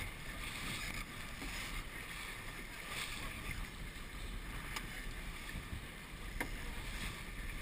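Water rushing along the hull of a sailing dinghy under way, with wind on the microphone. Two faint clicks partway through.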